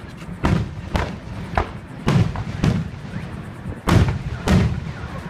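Aerial fireworks shells bursting overhead: about seven sharp bangs at irregular intervals, each with a short echoing tail.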